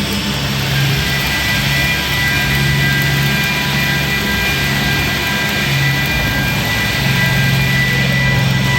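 Stick (SMAW) welding arc crackling and hissing steadily during a vertical-position weld, with a steady high whine and an on-and-off low hum from machinery underneath.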